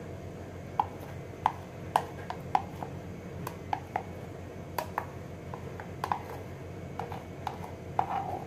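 Water dripping from a tilted plastic measuring container into water in a stainless steel bowl: irregular small plinks, with a short trickle about eight seconds in.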